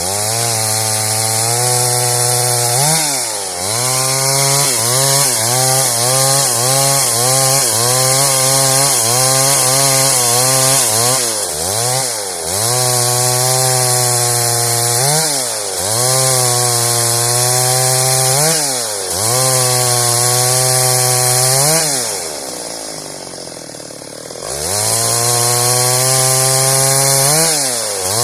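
Chainsaw running at high revs, cutting wood. The engine note dips and recovers several times, falls to a low idle for about two seconds near the end, then revs back up.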